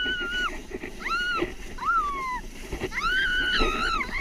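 A child's high-pitched squeals of excitement while sledding downhill. The first long squeal ends about half a second in, two shorter ones follow (the second falling in pitch), and a long wavering squeal comes near the end, all over the rushing scrape of the sled sliding on snow.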